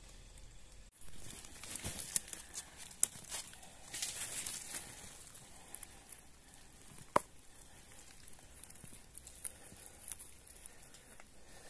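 Dry leaves and twigs rustling and crackling, with scattered sharp snaps; the sharpest comes about seven seconds in.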